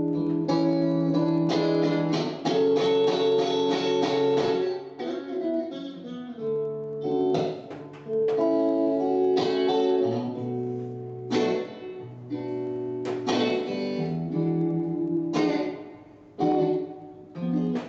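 Acoustic guitar strumming and picking chords in an instrumental break, with no voice.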